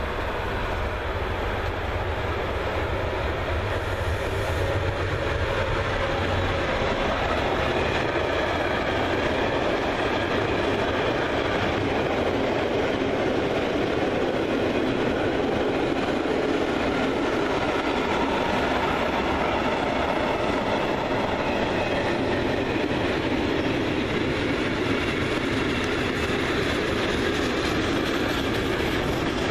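Long freight train passing behind an electric locomotive, its car-transporter, open and tank wagons rolling by with a steady rumble of wheels on the rails. It grows louder about six seconds in as the wagons draw level, then holds steady.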